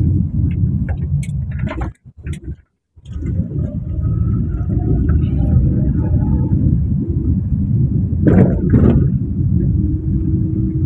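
Low road rumble inside a Perodua Myvi's cabin as it drives over rough, patched road, with scattered knocks from the front suspension. The mechanic traces the knocking to free play in a worn lower-arm ball joint. The sound cuts out briefly about two seconds in, and two louder knocks come near the end.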